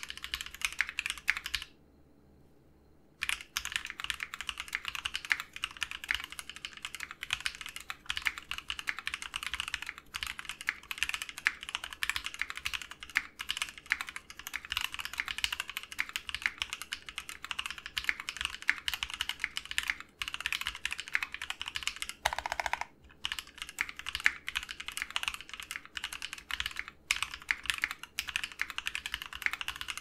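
Fast, continuous typing on a mechanical keyboard in a tray-mount aluminium 60% case damped with a silicone mold and nylon screws. The typing stops for about a second and a half about two seconds in, and after that undercase foam is added as well.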